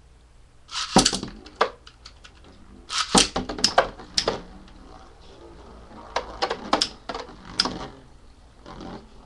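Two metal-wheeled Beyblade tops launched with a ripcord zip about a second in, then spinning and clashing in a plastic stadium: clusters of sharp clicking hits around three to four seconds in and again between six and eight seconds.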